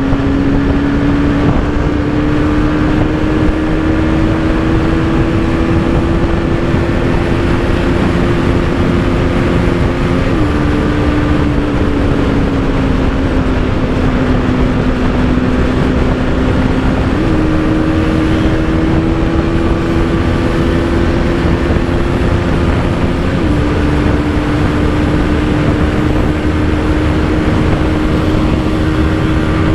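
Bajaj Pulsar NS200's 200 cc single-cylinder engine pulling hard at high revs, its pitch climbing slowly, dropping suddenly about ten seconds in, jumping back up near the middle and dropping again later, as gears are changed. A steady rushing noise runs underneath.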